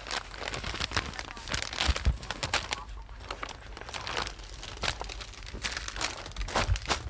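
Clear plastic garment packaging crinkling and rustling in irregular crackles as children's clothes are unpacked and handled.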